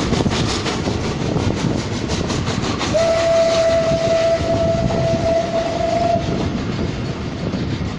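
Vintage ČSD passenger coaches rolling past with steady wheel and rail noise. About three seconds in, the train's locomotive whistle blows one steady note for about three seconds.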